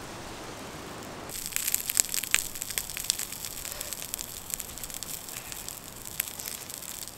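A quiet, even campfire hiss, then from about a second in asparagus frying in coconut oil in a titanium pan on the fire: a steady high sizzle with frequent sharp pops and crackles.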